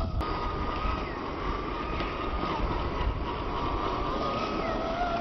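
Axial SMT10 Max-D R/C monster truck's electric motor and drivetrain whining steadily as it drives, the whine dropping lower near the end as it slows, with wind rumbling on the microphone.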